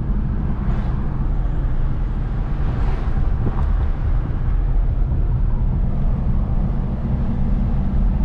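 Steady road and engine noise of a car being driven, heard from inside the cabin as a low rumble.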